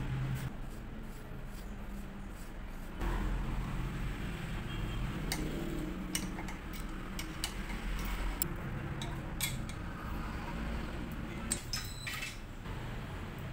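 Scattered light metallic clicks and clinks from hand work on a fixed-gear bicycle's crankset and bottom bracket, with a hex key turning the crank bolt. A steady low hum runs underneath and grows louder about three seconds in.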